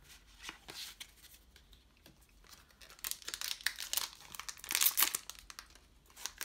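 A trading-card booster pack's wrapper being torn open and crinkled, loudest about two thirds of the way in. Soft clicks of cards being handled come before it.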